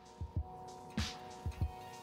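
Instrumental background music: steady held chords over a beat of low drum hits.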